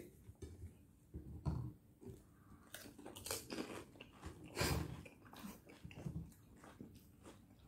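Crisp, hollow pani puri (golgappa) shells crunching as two people bite into them and chew fast, in a string of short, faint crunches.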